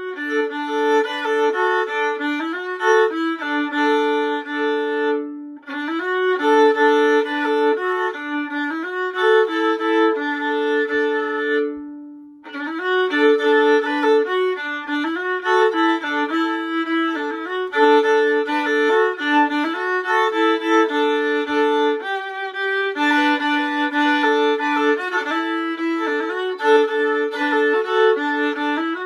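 Solo violin played fiddle-style: a fiddle tune bowed by an adult beginner at practice, often sounding two strings together. The playing breaks off briefly about five and a half seconds in and again about twelve seconds in.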